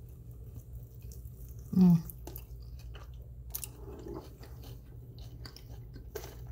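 Close-up chewing of a honey barbecue chicken wing, a bite and then wet mouth clicks over a steady low hum. About two seconds in comes a short, loud vocal sound from the eater.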